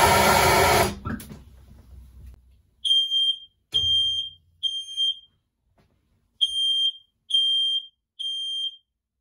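Smoke detector alarm sounding in its three-beep pattern: two groups of three short, high-pitched beeps with a pause between them, set off by smoke from burning PLA plastic. Before the beeps start, a loud hiss cuts off about a second in.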